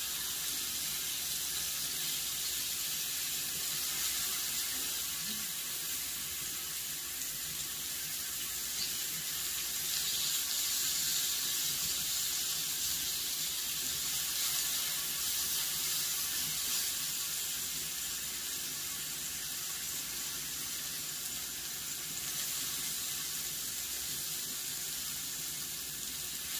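Thinly sliced beef brisket rolls and enoki mushrooms sizzling on a hot cast-iron griddle pan: a steady, even hiss.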